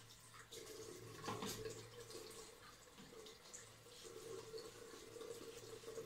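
Faint, soft wet brushing and squishing of a shaving brush working Bay Rum shaving-soap lather over a beard, with small scattered ticks. A faint steady hum runs underneath.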